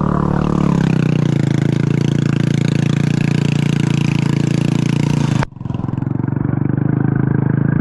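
Motorcycle engine running at a steady speed while riding, with wind and road hiss over it. About five and a half seconds in the sound drops out sharply for a moment, then the engine carries on with far less hiss.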